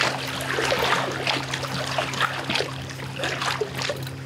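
Water splashing and sloshing irregularly as a hooked common carp thrashes at the surface while it is drawn in toward the landing net, over a steady low hum.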